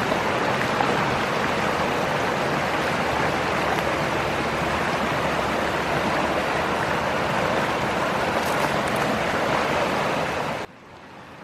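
Mountain creek water rushing over rocks, a steady close-up rush recorded near the water; it cuts off suddenly near the end, leaving a much quieter background.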